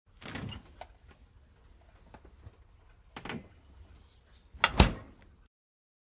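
Refrigerator door slammed, with a low steady hum from the fridge underneath. There is a thud near the start and another a little after three seconds, and the loudest, a quick double bang, comes near the end.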